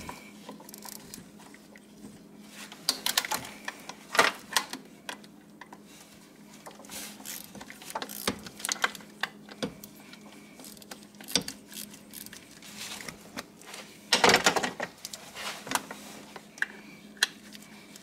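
Clicking and clinking of hand tools on metal in short, irregular spells as the A/C compressor's 12 mm mounting bolts are loosened, with the loudest burst about fourteen seconds in.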